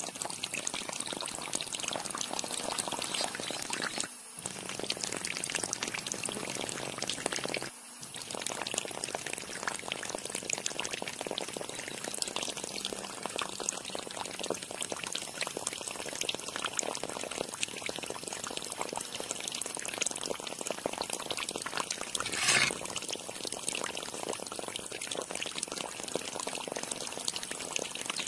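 Water from a small pump's hose pouring steadily and splashing into shallow water, broken by two brief dips about four and eight seconds in, with one short louder burst about three quarters of the way through.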